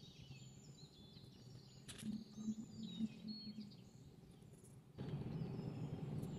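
Birds chirping faintly over low background noise, with two sharp clicks about two and three seconds in; the background noise gets louder about five seconds in.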